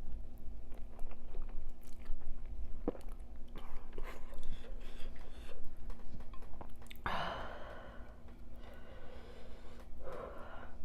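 Close-miked chewing of x2 spicy noodles, with many small wet mouth clicks. A longer, louder noisy mouth sound comes about seven seconds in, and another near the end.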